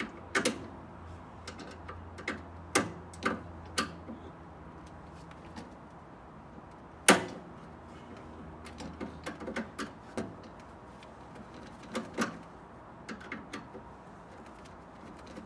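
Scattered knocks, clicks and clatter of a microwave oven's sheet-metal casing and parts being handled and pulled apart by hand, with one sharp, loud knock about seven seconds in.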